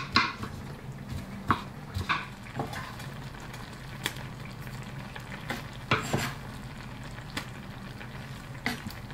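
Ground beef in sauce sizzling in a frying pan, with scattered knocks and scrapes as chopped mushrooms are pushed off a wooden cutting board and dropped into the pan.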